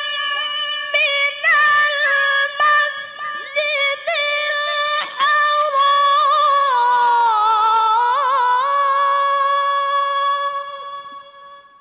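A woman reciting the Qur'an in the melodic tilawah style into a microphone: ornamented, wavering phrases broken by a few short gaps. About two-thirds of the way through, the pitch steps down into a long held note that fades away near the end.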